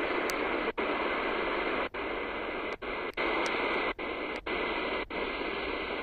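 Medium-wave static hissing from a small portable DSP radio receiver's speaker as it is tuned step by step across empty frequencies at the top of the medium-wave band. The hiss drops out for an instant several times, once at each tuning step.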